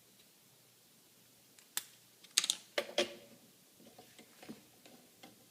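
A few sharp clicks and knocks starting just under two seconds in, then lighter taps: small metal parts and tools being handled during work on an air compressor's regulator fitting.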